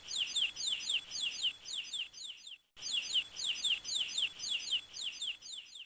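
Chicks (young chickens) peeping: rapid high-pitched peeps, each sliding down in pitch, about four a second, in two runs with a short break near the middle.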